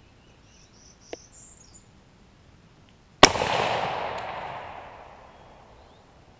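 A single shot from an M1D Garand sniper rifle in .30-06, a sharp report about three seconds in that rolls away in a long echo over a couple of seconds.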